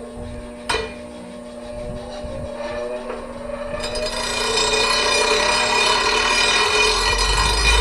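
Power tool working on the steel steering shaft: a sharp click just under a second in, a rising whine, then from about four seconds in a dense metal-working noise that grows steadily louder, over a steady hum.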